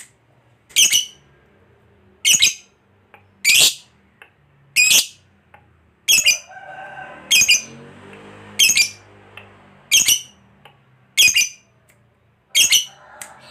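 Pet lovebird giving a series of about ten loud, shrill calls, one every second and a bit. Softer chattering sits under the calls around the middle.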